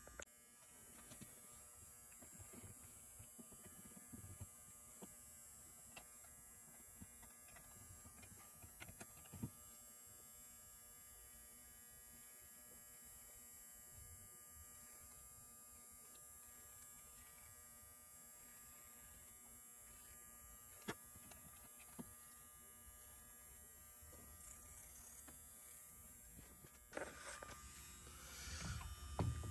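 Near silence: a faint, steady electrical hum, with a few faint clicks and some brief handling noise near the end.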